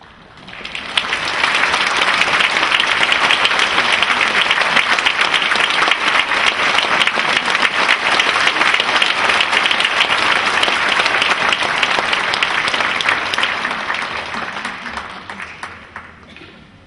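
Audience applauding in a concert hall, swelling up within the first second or two, holding steady, then dying away over the last few seconds.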